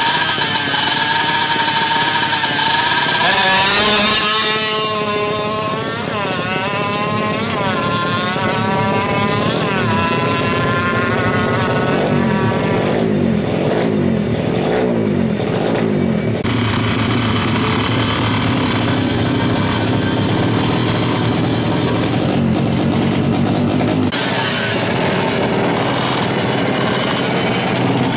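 Tuned 116cc two-stroke engine of a Yamaha F1ZR racing moped revving high, then pulling away, its pitch climbing and dropping again at each gear change. Later it runs lower and steadier, and near the end, after an abrupt cut, it revs high again.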